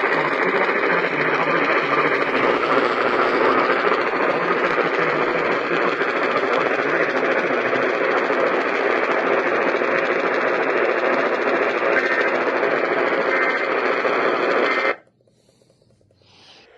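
Radio static: a steady hiss from a radio receiver that cuts off abruptly near the end.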